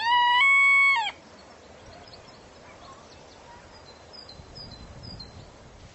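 Rooster crowing, its last long held note ending abruptly about a second in. Then a quiet background with a few faint high chirps near the end.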